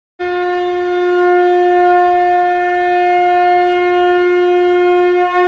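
Conch shell (shankh) blown in one long, steady note held for about five seconds.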